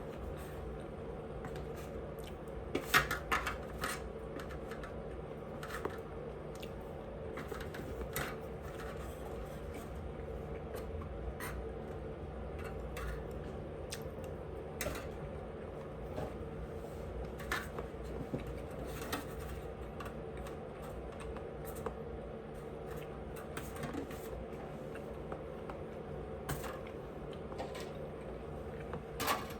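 A person eating quietly: scattered small clicks and taps of chewing and utensils, with a cluster of louder ones about three seconds in, over a steady background hum.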